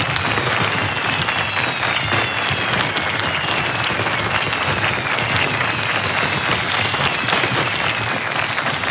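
A large crowd applauding steadily, the dense clatter of many hands, with several high whistles gliding slowly downward in pitch over it.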